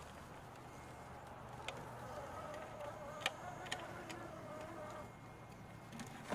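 Electric drive motor and gears of a scale RC crawler truck whining faintly as it creeps over rocks, with a few sharp clicks of tyres and chassis on stone. The whine stops about five seconds in.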